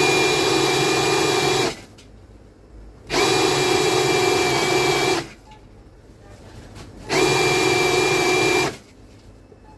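Electric power tool run three times in bursts of about two seconds, each starting and stopping abruptly at a steady pitch.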